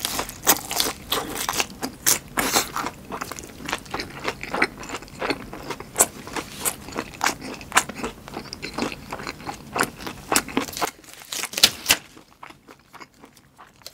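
Close-miked chewing of a crunchy mouthful: dense, quick crunches that die down about eleven seconds in, leaving only faint chewing.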